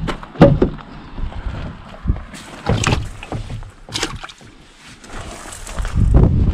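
Knocks and clunks from handling at a pickup truck's open rear cab door, a few sharp ones spread apart, with a low rumble of wind on the microphone near the end.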